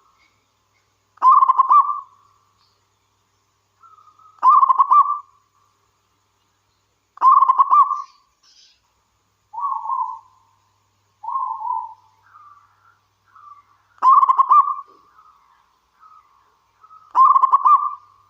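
Zebra dove (perkutut) singing its cooing song: five loud, rattling coo phrases, each about a second long and about three seconds apart. Two softer, lower single coos and a few faint short notes fill the longer gap midway.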